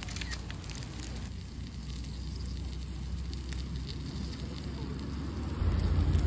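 Wood campfire crackling under a cast-iron griddle, with French toast sizzling on it and occasional small pops.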